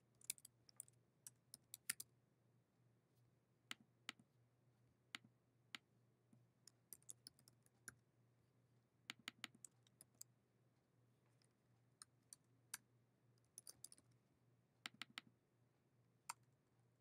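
Typing on a computer keyboard: fairly faint key clicks in short, irregular bursts with pauses between them, as single words are typed in.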